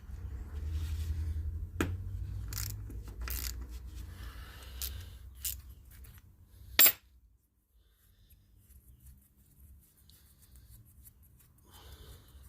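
A spanner and small metal carburettor parts being handled while the float bowl comes off a lawnmower carburettor: scattered clicks and clinks, with one sharp metallic clink about seven seconds in, then faint handling noise.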